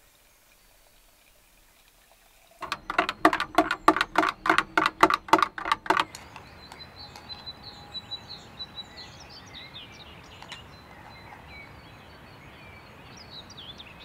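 A loud run of rapid pulses, about four a second, for some three seconds, then birds chirping over a steady background hiss.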